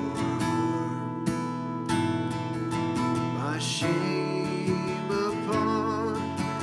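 Instrumental music on strummed acoustic guitar.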